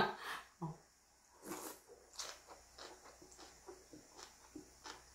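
Slurping and chewing a mouthful of thin wheat noodles (janchi guksu) with kimchi: a couple of soft slurps about a second and a half in, then a run of small, quiet chewing sounds.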